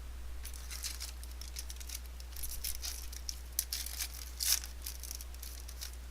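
A trading-card pack's wrapper crinkling and tearing as it is opened and the cards are handled, in a quick series of crisp rustles that are loudest about four and a half seconds in. A steady low hum runs underneath.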